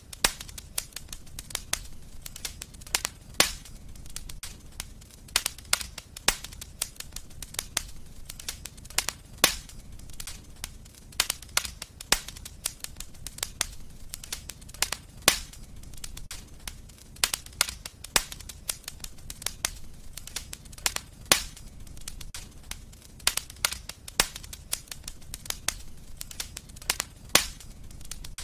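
Fire in a fireplace crackling, with irregular sharp pops several times a second, a few much louder than the rest, over a steady low rumble.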